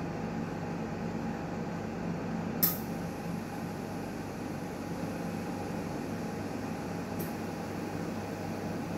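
Newmed Kronos S benchtop steam autoclave running mid-cycle with a steady hum. There is a sharp click about two and a half seconds in and a fainter one near seven seconds.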